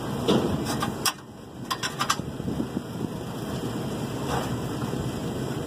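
Metal heat exchanger knocking and scraping against the cabinet as it is slid into place in a Bryant rooftop unit, with several sharp knocks in the first two seconds and another about four seconds in, over a steady mechanical hum.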